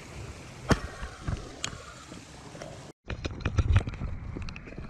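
A small stream running over rocks, a steady rushing with a few knocks. About three seconds in, this cuts to footsteps on a dirt and gravel path, irregular crunching steps with low thuds.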